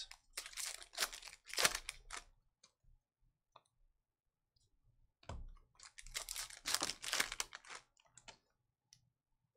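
A trading-card pack's foil wrapper torn open and crinkled, then the stack of cards slid and flicked through by hand, in two bursts of rustling a few seconds apart.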